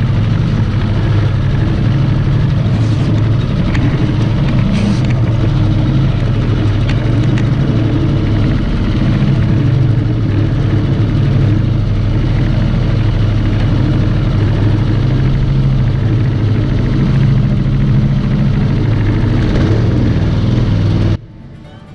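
212cc Predator single-cylinder four-stroke engine on a Mudskipper longtail mud motor running steadily at a constant throttle, pushing the canoe along. It cuts off abruptly near the end, giving way to quieter music.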